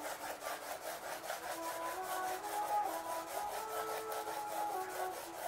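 Graphite pencil hatching on paper: quick back-and-forth diagonal strokes scratching across the sheet in an even rhythm, about five strokes a second.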